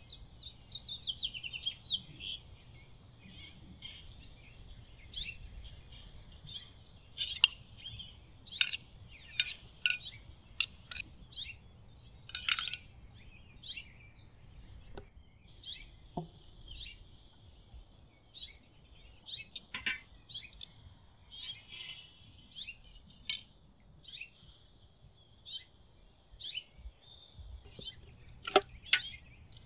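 Small birds chirping throughout, with scattered sharp clinks of a metal spoon against china and steel dishes.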